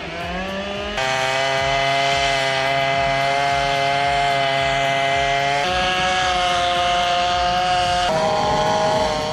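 An engine running at high, steady revs, its pitch rising in the first second, then jumping to a new level twice and wavering near the end.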